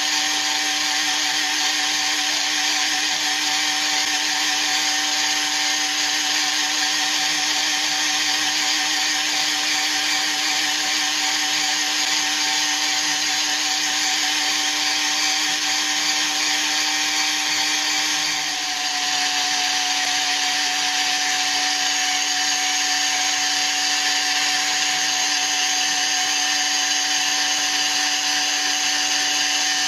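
Flexible-shaft rotary tool running steadily: a constant motor whine with a hiss over it. About two-thirds of the way through it dips briefly and settles at a slightly lower pitch.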